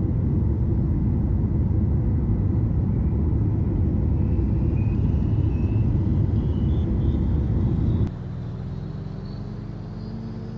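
Vehicle rumble, loud and steady, with a faint whine slowly rising in pitch. About eight seconds in it cuts off abruptly to a quieter engine sound that climbs steadily in pitch.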